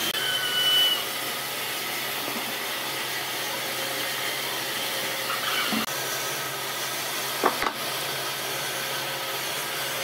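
Steady rushing noise of a workshop machine running. A short high whine sounds near the start, and there is one sharp tap about seven and a half seconds in.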